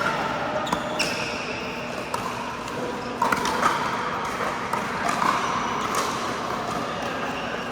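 Indoor pickleball play: sharp, irregularly spaced pops of paddles striking the hollow plastic ball and the ball bouncing on the court. These ring out in a large hall over a steady background din of play.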